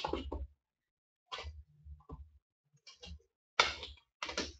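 Cardboard hobby boxes being handled on a table: a series of about six short knocks and scuffs with quiet gaps between them, the loudest about three-quarters of the way in.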